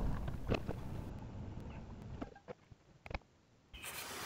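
Faint low rumble of a vehicle on the move, heard from inside the cab, fading away over the first couple of seconds, with a few scattered light clicks. It cuts to a moment of dead silence, then a quiet steady background comes back.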